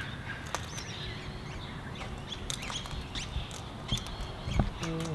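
Birds chirping in short calls over steady outdoor background noise, with a scatter of sharp clicks and a low thump near the end.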